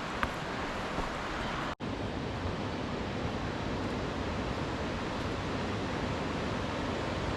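Steady rush of flowing water from a river or cascade, an even noise with no rhythm, broken by a momentary cut about two seconds in.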